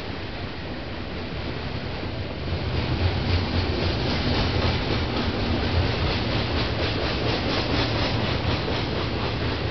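Double-stack container freight train rolling past: a steady rumble of steel wheels on the rails with a rapid, even clatter, growing louder about two and a half seconds in.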